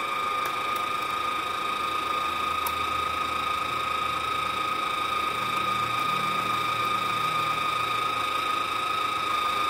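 Wire-feed motor of a MultiPro MIG-MMA/TIG 160 A-SG inverter MIG welder running with the torch trigger held, pushing welding wire through the torch to the nozzle tip. It makes a steady, even whine.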